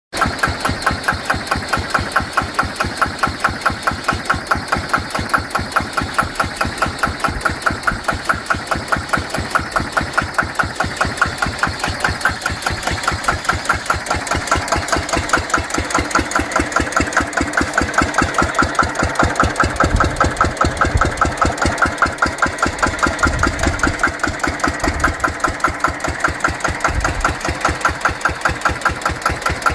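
Allgaier R22 tractor's single-cylinder air-cooled diesel running steadily at idle, an even, regular chug.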